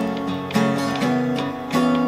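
Acoustic guitar strummed, with sharp chord strokes every half second or so and the chords ringing on between them.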